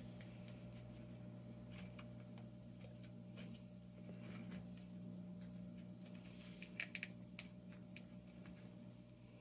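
Faint, scattered clicks and taps of fingers working in a small plastic candy-kit mould tray, loudest in a quick cluster about seven seconds in, over a steady low electrical hum.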